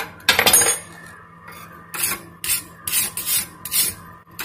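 Steel wire brush scrubbed over a fresh arc-weld bead to clear off the slag: one longer scrape about half a second in, then quick short strokes, about two a second.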